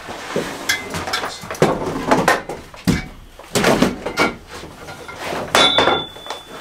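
Metal-framed folding camp cots being unfolded: a run of clacks and knocks as the frame legs swing and snap into place, with a short high squeak near the end.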